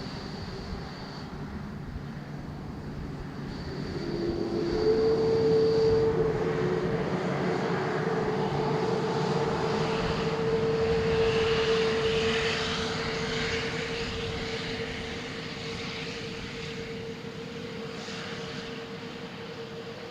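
Jet airliner taking off: the engine noise swells from about four seconds in, stays loudest for several seconds, then slowly fades away, with a steady droning tone running through it.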